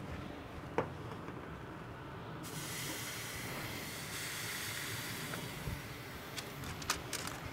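Ribeye steak sizzling as it sears on a hot grill grate, a steady hiss that fills out a couple of seconds in. A few light clicks sound near the end.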